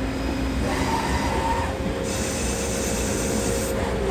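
Metal lathe running with a steady gear whine while a single-point tool takes a threading pass on a steel wrist pin. A high hiss of the cut comes in about two seconds in and stops about a second and a half later.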